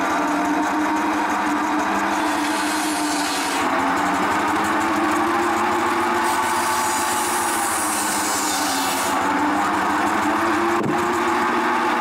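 Circular saw bench running with a steady machine whine; from about three and a half seconds to nine seconds a harsher hiss rides over it, as a log is fed through the blade. A single sharp click near the end.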